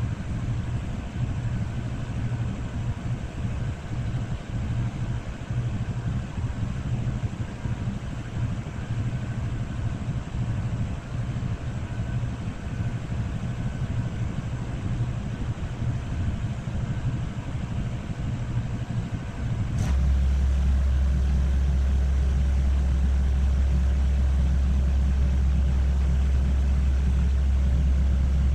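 A steady low engine-like rumble. About two-thirds of the way in, a click, and the sound switches abruptly to a deeper, louder, unchanging drone.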